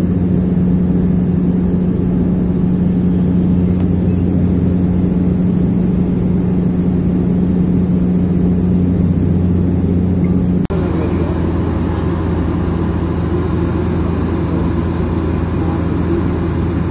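Steady drone of an airliner's engines heard inside the passenger cabin in flight. It cuts out for an instant about ten and a half seconds in, then continues with a slightly different tone.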